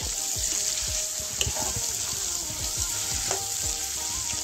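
Goat meat and sliced onions sizzling steadily in a hot frying pan. A metal spatula stirs and scrapes through them in repeated strokes.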